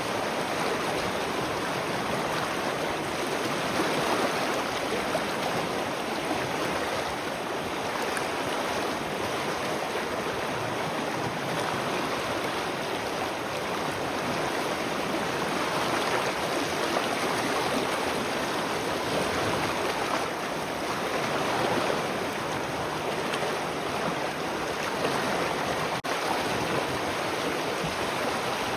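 Spring water flowing steadily, an even rushing and splashing of running water.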